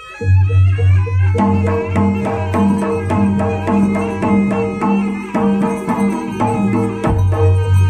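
Live Javanese jaranan gamelan music: hand drums beating a steady, even rhythm under ringing pitched percussion, coming in loudly after a short lull at the start.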